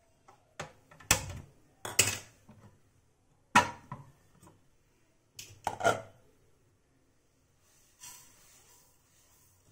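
Kitchenware being handled: several sharp clanks as a steel plate is gripped with tongs and a glass pan lid is lifted and set down. Near the end comes a soft rustle of raw sesame seeds pouring from the plate into an empty nonstick pan.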